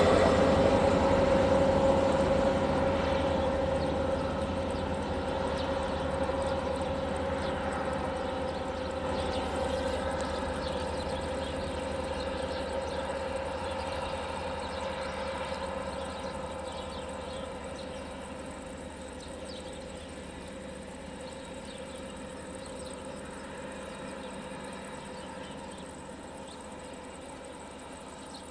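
MAN diesel railcar pulling away along the track, its engine drone with a steady hum fading gradually as it recedes into the distance.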